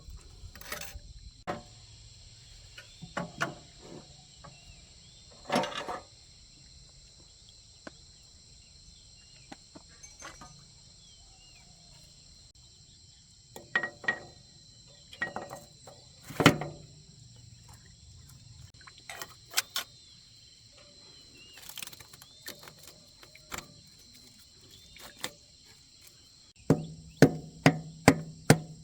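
Hand tools knocking and clinking on tractor parts: scattered single knocks, then a quick run of about five hammer-like strikes near the end. Insects buzz steadily throughout.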